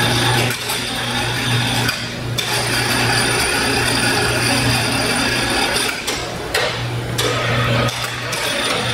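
Overhead chain hoist lifting a heavy motor rotor, with a steady mechanical hum and ratcheting clicks of the chain running through the hoist. It goes in several short runs, with brief stops about 2 s and 6 s in.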